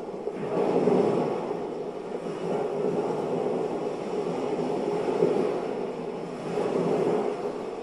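Droning ambient dance score, a dense low hum that swells and eases every couple of seconds, picked up from the room's speakers.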